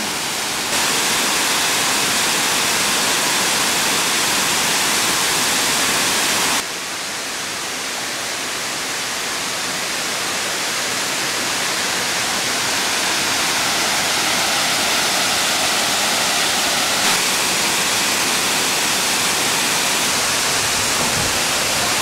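Steady rushing roar of Dudhsagar Falls, a very high waterfall, its water crashing down. It steps up a little about a second in, drops suddenly after about six and a half seconds, then slowly builds again.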